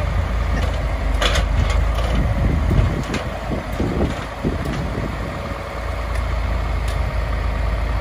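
Farm tractor engine running steadily as the tractor drives toward a hay bale, with scattered rattles and knocks about a second in and again between two and four seconds in.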